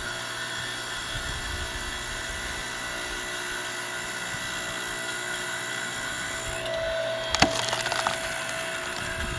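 Automatic firewood splitting machine running steadily; a little over six seconds in, a higher steady whine joins, then a sharp crack and a short run of smaller cracks as a log splits apart.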